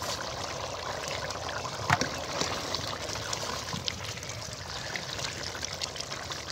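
Chickpea curry simmering in an uncovered aluminium pot, a steady bubbling hiss, with half its water boiled off, while a metal ladle stirs through it; one sharper knock about two seconds in.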